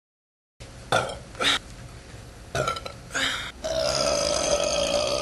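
A woman burping: a few short burps, then, about three and a half seconds in, one long drawn-out burp held at a steady pitch.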